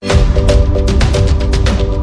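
Theme music for an animated logo intro starts abruptly, with deep bass, a fast steady drum beat and a short repeating chord figure.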